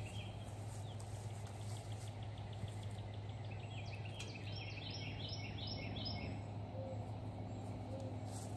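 Outdoor ambience at a wooded yard edge: songbirds calling repeatedly, busiest around the middle, with a faint fast ticking trill early on, over a steady low hum.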